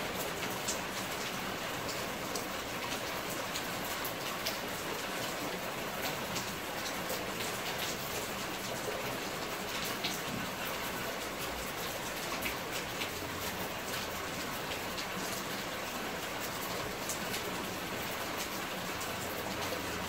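Steady rain: a continuous even hiss with many small, sharp drop ticks scattered through it.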